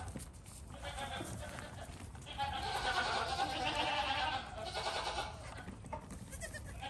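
Goat kids bleating, several calls overlapping, loudest from about two and a half to four and a half seconds in.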